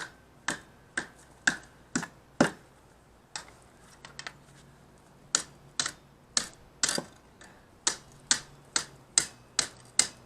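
Sharp, separate pops and crackles from the fire in a homemade forced-air blast furnace, roughly one to two a second with a short lull a few seconds in, over a faint low steady hum.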